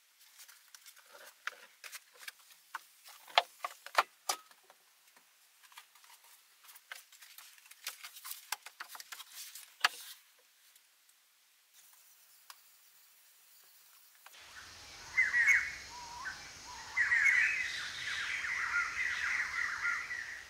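Scattered sharp clicks and crackles through the first half. After a quiet gap, birds chirp and call over a steady forest background, from a little past the middle to the end.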